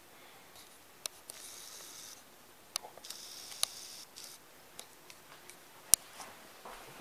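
Handling noise from a handheld camera in a small quiet room: soft rustles and a few sharp clicks, the sharpest about six seconds in.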